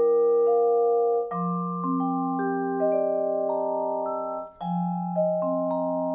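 Adams vibraphone played with four mallets: chords struck and left ringing under the pedal, with single notes added one by one over them. About a second in and again near the middle, a new low chord is struck; the ringing is briefly cut off just before the second one.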